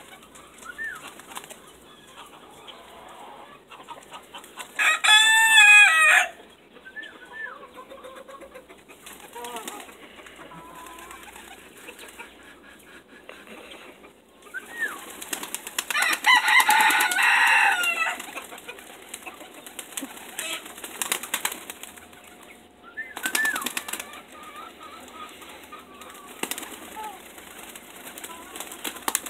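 Pigeons flapping their wings as they fly onto and off a person's arms, in bursts of rapid wingbeats, loudest about two-thirds of the way through. Short high bird chirps come and go, and a loud call rings out about five seconds in.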